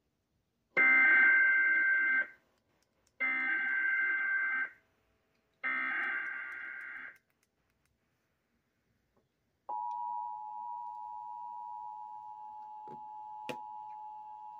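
Emergency Alert System data header broadcast over NOAA Weather Radio: three identical bursts of warbling digital tones, each about a second and a half long, with a short gap between them; the first burst is the loudest. After a brief pause a steady two-pitch attention tone starts and holds, with a single click near the end. This is the start of a new severe thunderstorm warning.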